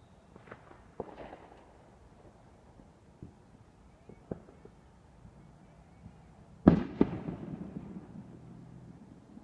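Fireworks going off: a few light, scattered pops over the first half, then one loud bang about two-thirds of the way in, trailing off in a rumbling echo that fades over a second or two.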